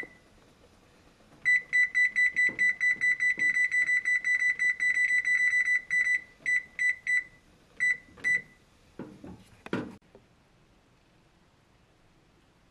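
Electric oven control panel beeping as its buttons are pressed to set the baking time: a fast run of short, high, identical beeps, several a second, then a few single beeps. Near the end come a couple of soft knocks.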